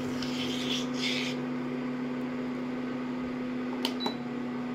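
Induction cooktop humming steadily while it heats a steel pan of curdling milk. A spoon scrapes and stirs in the pan for about the first second, and two light clicks come near the end.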